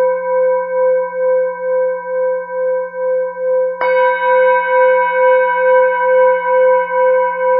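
Tibetan singing bowl ringing with a steady, wavering tone that pulses about twice a second. It is struck again a little before four seconds in, and the ring swells louder after the strike.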